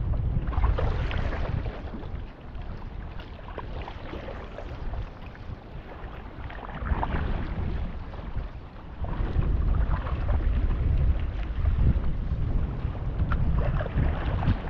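Wind buffeting the microphone in gusts, over water splashing and lapping as a stand-up paddleboard moves through shallow water.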